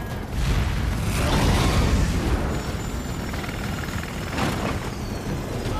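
Oil rig explosion in a film soundtrack: a deep boom swells up about a third of a second in, peaks over the next two seconds and settles into a steady rumble of fire, with a second shorter burst of noise about four and a half seconds in.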